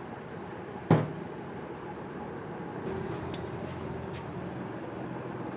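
Handling noise on a motorcycle's aluminium engine case: one sharp knock about a second in, then a few faint small clicks over a low steady background hum.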